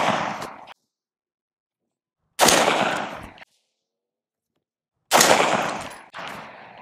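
Single unsuppressed shots from a 16-inch mid-length AR-15 carbine firing PMC .223: the ringing tail of one shot at the start, then two more sharp cracks about two and a half seconds apart, each echoing for about a second. The shots measure about 166.5 dB on a meter a metre to the side of the muzzle.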